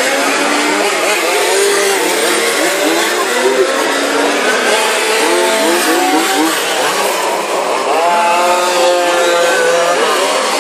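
Several 1:5-scale radio-controlled Formula 1 cars racing, their small two-stroke petrol engines overlapping one another, each one's pitch rising and falling as it accelerates out of and slows into the corners.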